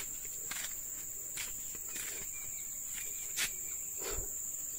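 Insects, crickets or similar, keeping up a steady high-pitched drone, with a few short rustles and taps scattered through it, the loudest about three and a half seconds in.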